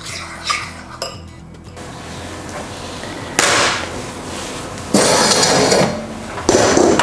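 Metal spoon clinking against a ceramic bowl while stirring sugar glaze, then three loud noises, each about a second long.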